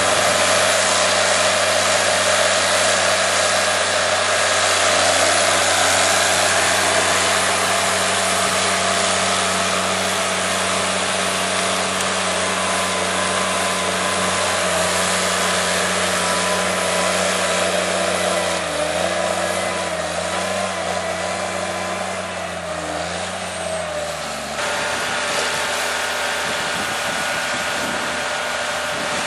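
Cat 584 forestry forwarder's diesel engine running steadily under load as the log-laden machine crawls over rough ground. About two-thirds of the way through, the engine pitch dips and recovers several times. Near the end the sound changes abruptly to another steady machine drone.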